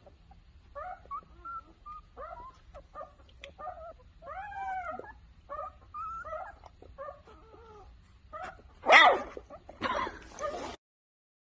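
Newborn Rottweiler puppy whimpering in a string of short, high-pitched squeaky cries. About 9 seconds in it lets out its first bark, loud and sudden, followed by a second, shorter cry.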